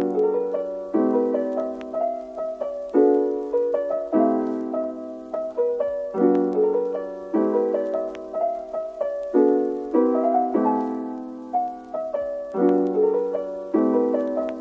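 Background music: a gentle piano piece, with chords struck about once a second, each fading before the next.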